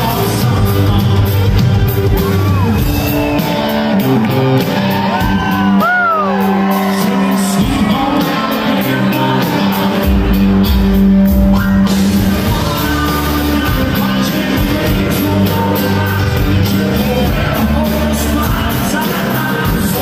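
Live rock band playing a song with a lead singer, guitars and drums, with fans in the crowd shouting and whooping along.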